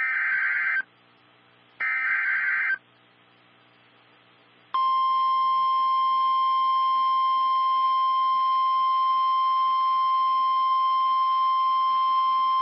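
NOAA Weather Radio emergency alert signal. First come two short buzzy SAME data bursts about a second apart, then about five seconds in the steady single-pitch 1050 Hz warning alarm tone, which announces that a severe thunderstorm warning is about to be read.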